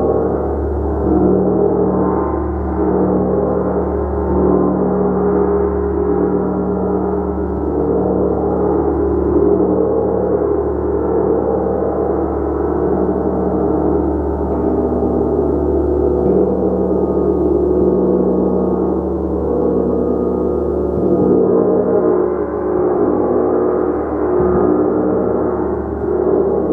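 A gong played continuously, its tones overlapping into a steady wash of sustained ringing, with no single strike standing out.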